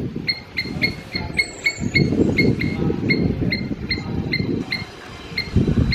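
Squirrel giving a repeated alarm call of short, sharp chirps, about three or four a second, over a low rumbling noise that comes and goes.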